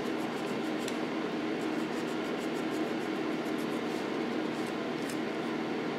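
Electric fan running with a steady hiss, with faint, quick rasping strokes of a small file working a soldered lead figure.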